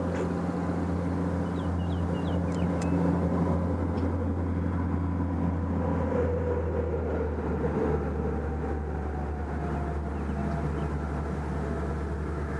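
Steady low engine rumble with a hum, with a few faint high chirps about two seconds in.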